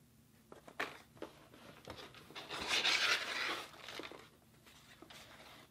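Rustling of packaging as items are handled and pulled out of a cardboard shipping box: a few light taps and knocks, then a louder rustle lasting about a second in the middle.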